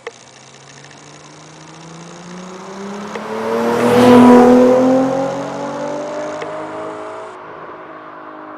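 Nissan VQ35HR 3.5-litre V6 breathing through an Amuse Titan exhaust muffler as the car accelerates past. The exhaust note climbs steadily in pitch, builds to its loudest about four seconds in, then fades as it moves away. A short click comes at the very start.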